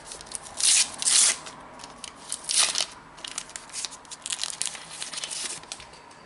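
A trading-card foil packet being torn open and its wrapper crinkled: loud rips just under a second in and again about two and a half seconds in, with lighter crackling and rustling between and after.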